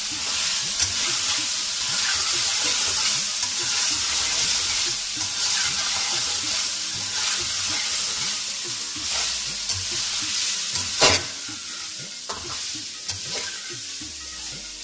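Boneless chicken sizzling in hot ghee in a metal karahi while a metal spoon stirs and scrapes it around the pan, the bhuna stage of frying with ground spices. A sharp clack about eleven seconds in, after which the sizzle eases slightly.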